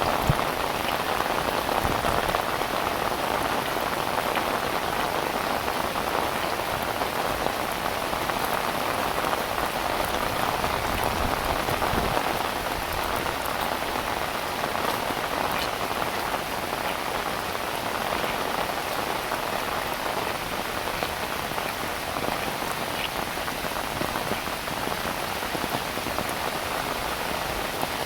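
Heavy rain falling steadily, an even hiss of rain on surfaces with scattered individual drop ticks.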